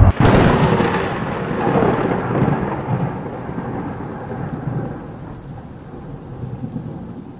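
Thunderclap sound effect: a sharp crack right at the start, then a long rumble that slowly fades away.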